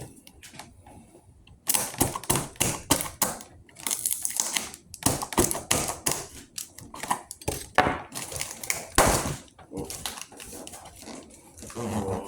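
Speaker packaging being cut and torn open: a rapid run of sharp clicks, crackles and knocks of plastic and cardboard that starts about a second and a half in.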